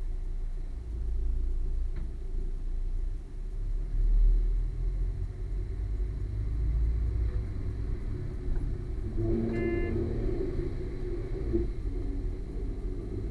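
Low, steady rumble of a diesel railcar's engine as the train sits at the platform and then pulls away. About ten seconds in, a brief higher-pitched tone with several notes stacked together sounds over the rumble.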